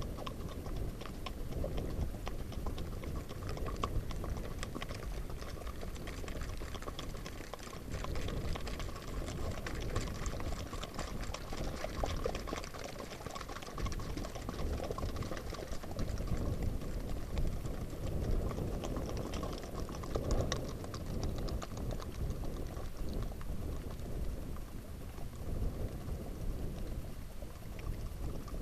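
Hooves of a ridden Icelandic horse and the horses around it moving briskly over a wet, muddy track, heard from the saddle. The hoofbeats make a dense, irregular patter over a steady low rumble.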